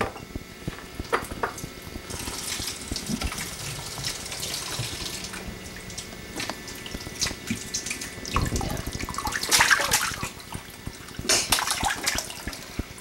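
Kitchen sink faucet running, with water splashing and dribbling as it is rinsed over a baby in the sink. Louder splashes come about ten seconds in and again a little later.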